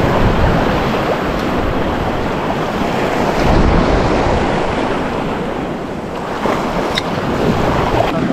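Steady rush of ocean surf washing over a rocky shoreline, with one short click near the end.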